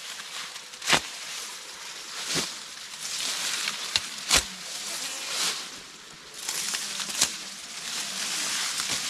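Elephant grass (BRS Kurumi) being cut by hand low at the base: leaves rustling, with several sharp snaps as the stalks are cut through.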